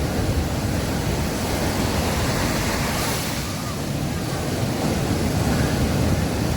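Sea waves breaking and washing on a beach: a steady rush of surf that swells a little about halfway through.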